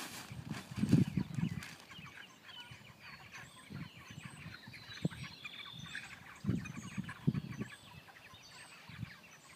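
A flock of broiler chickens clucking and peeping continuously, with several dull low thuds from handling, the loudest about a second in.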